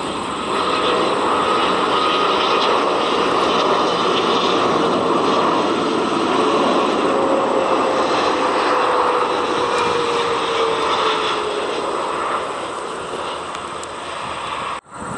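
A Boeing 777 freighter's GE90 jet engines on landing approach as it passes: a loud, steady jet noise with a faint whine that slowly falls in pitch as it goes by. The noise eases off as the aircraft reaches the runway, and the sound cuts off sharply near the end.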